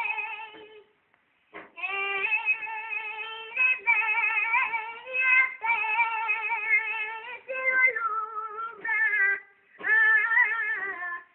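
A boy singing an Andalusian saeta alone in a high voice: long, wavering, ornamented phrases, broken by short pauses for breath about a second in and again near the end.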